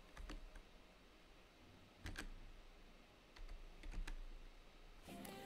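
A few faint, scattered keystrokes on a computer keyboard, typing a short search.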